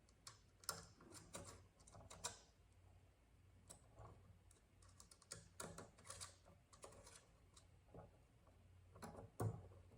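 Faint, irregular small clicks and taps of an Allen key working the set screws of a billet aluminium knob, as it is moved from screw to screw around the knob.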